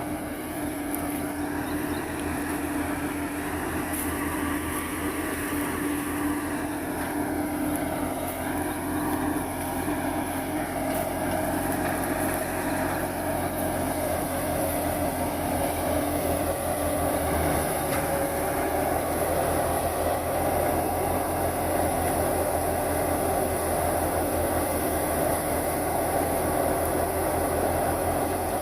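Tractor engine driving a wheat thresher, running steadily with a continuous mechanical drone from the machine; the hum shifts in pitch partway through and grows slightly louder.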